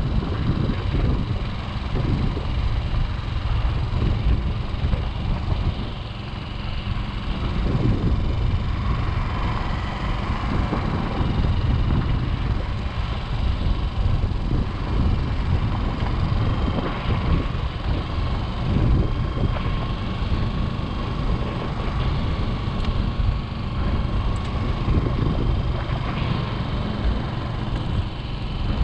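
Motorcycle engine running steadily while riding along a dirt road, with tyre rumble and wind noise mixed in.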